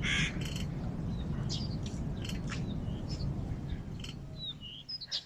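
Small birds chirping: repeated short, high calls over a steady low background rumble.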